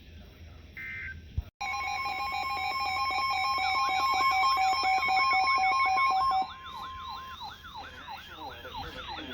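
Emergency Alert System audio: a last short data burst from the header tones, then the steady two-tone EAS attention signal sounding for about five seconds. A fast-warbling siren tone comes in partway through and keeps going after the attention tone cuts off.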